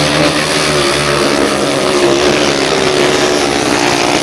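Solo grasstrack racing motorcycles at racing speed, their engines holding a loud, steady note that wavers slightly as the riders work the throttle through a bend.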